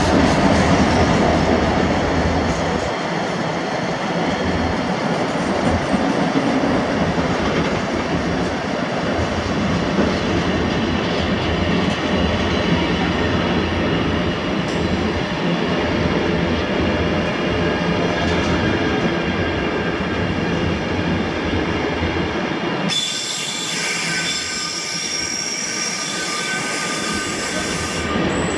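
Container wagons of a long intermodal freight train rolling steadily past, their wheels rumbling on the rails, with a thin high wheel squeal. About 23 s in, the low rumble drops away for several seconds, leaving mostly hiss.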